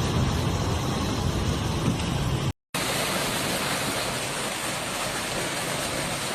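Steady hiss of a heavy hailstorm downpour, with a low rumble under it at first. About two and a half seconds in it cuts out for a moment and comes back as a thinner, higher hiss with less rumble.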